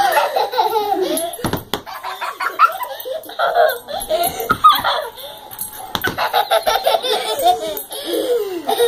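Several people laughing, with children's giggling among it, in pulsing bursts. A couple of thumps about one and a half seconds in.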